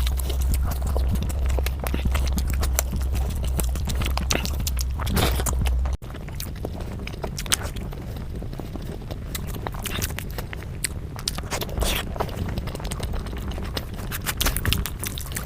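Close-miked chewing and wet mouth sounds of someone eating spicy egg curry: many small clicks and smacks. A low hum lies under the first six seconds and stops abruptly.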